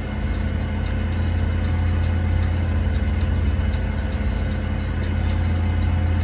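Steady low mechanical hum, like an engine running at a constant idle, holding even throughout.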